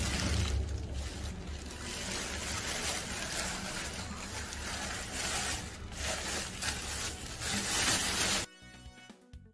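Plastic carrier bags rustling and crinkling in uneven surges as a covered plastic bowl is wrapped in them. Near the end the rustling cuts off abruptly and soft music begins.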